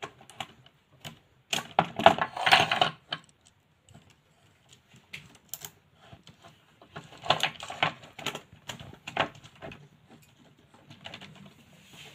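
A plastic ceiling rose and its wires being handled at close range: quick clicks and rattles of plastic, in two busy spells about two seconds in and again around seven to nine seconds.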